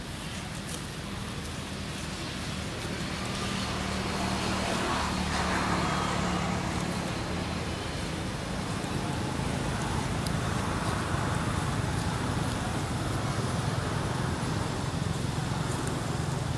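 A motor vehicle's engine hum with road noise, growing louder about five seconds in and staying up.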